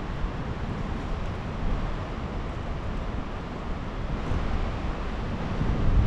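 Wind buffeting the microphone: a steady noise, heaviest in the low end, with no distinct events.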